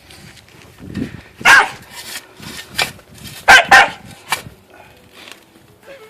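Dog barking in short, sharp bursts: one about a second and a half in, then two close together about three and a half seconds in, with softer sounds in between.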